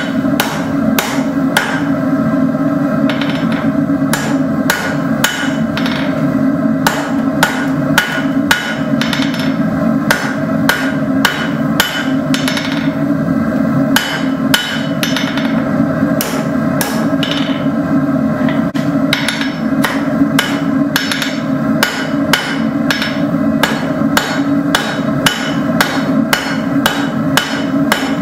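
Hand hammer striking hot steel rod on an anvil, roughly two blows a second in runs with short pauses, as the rod is forged into a leaf keychain. A steady rushing noise runs underneath.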